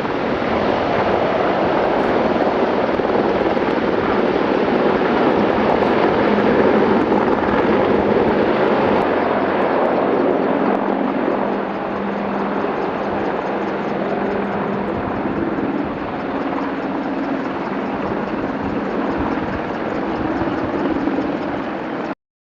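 Helicopter flying: steady, dense rotor and engine noise. It eases a little about halfway through and cuts off abruptly near the end.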